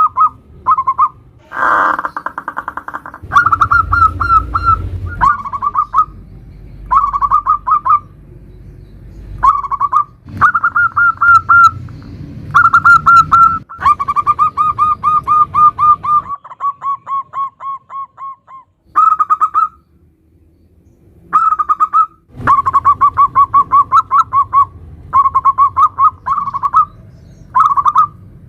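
Zebra dove (perkutut) cooing in the local 'nutut' song style: phrase after phrase of fast, stuttering coos on about one pitch, separated by short pauses. One longer phrase in the middle trails off before a brief pause.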